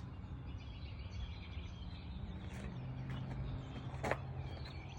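Outdoor ambience: a steady low hum under faint bird chirps, with a short click about four seconds in.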